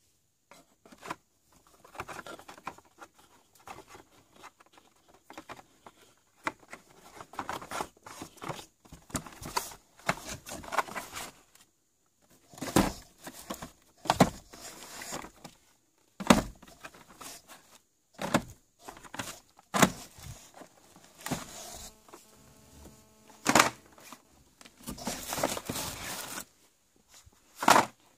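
Cardboard firework boxes and plastic packaging being handled: irregular rustling, scraping and knocking as items are picked up and set down, with several louder thumps and a short squeak about three quarters of the way through.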